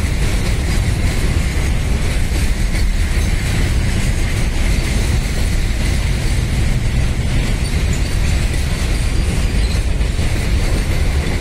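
Container freight train's loaded flat wagons rolling past close by: a loud, steady rumble of steel wheels on rail.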